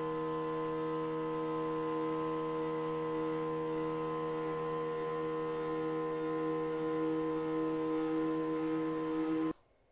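Stepper motor driving the Y-axis of a CNC mill, giving a steady loud hum of several tones at once; the owner calls this Y-axis by far the most vibrating stepper motor he has had. The sound cuts off abruptly near the end.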